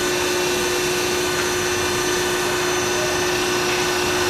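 Automatic car wash machinery running: a steady, loud mechanical whine with a constant hum, unchanging throughout.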